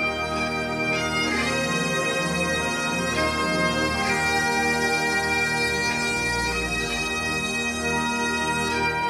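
Scottish bagpipes playing a melody in long held notes over a steady, unbroken drone, from a recorded concert track.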